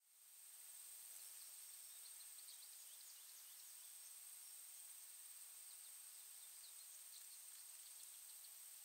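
Faint outdoor ambience fading in over the first second: a steady high hiss with a thin, constant high-pitched tone, and scattered faint bird chirps.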